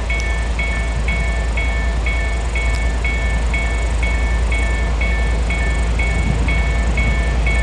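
Level-crossing warning bell dinging steadily about twice a second over the low, steady noise of a freight train with its wagons passing the crossing.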